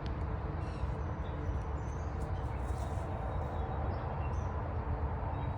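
Steady outdoor background of low rumble and hiss, with a few faint, short high bird chirps about two and four seconds in.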